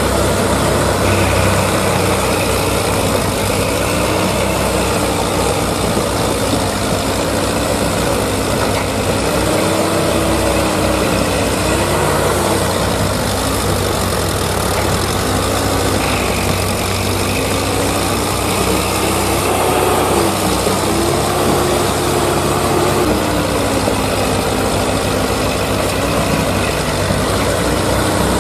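Tractor engine sound running steadily, its pitch slowly rising and falling every few seconds as if being revved gently under load.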